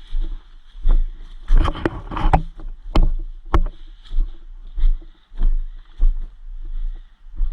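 Footsteps of a player moving through jungle undergrowth, heard as regular low thumps about twice a second on a body-worn camera, with brush rustling and two sharp cracks a little past the middle. A steady high insect drone runs underneath.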